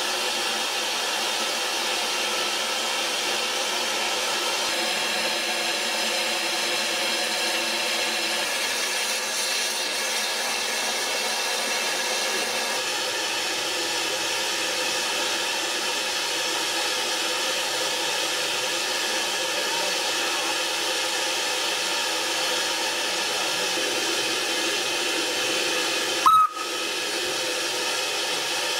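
Narrow-gauge steam locomotive Palmerston, standing and blowing off steam with a loud, steady hiss. Near the end there is one brief sharp sound with a short squeal.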